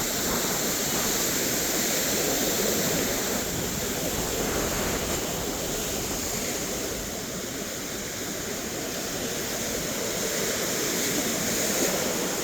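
Steady rushing water noise, dipping slightly in level midway and building again.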